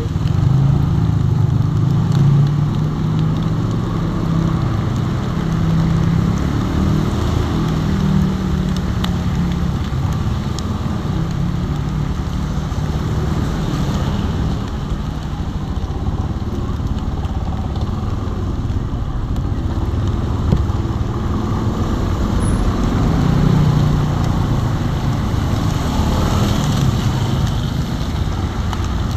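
A motorcycle engine runs at low speed while riding in traffic on a rain-soaked road, its low hum rising and falling. Under it is a steady hiss of rain and water spray from the tyres.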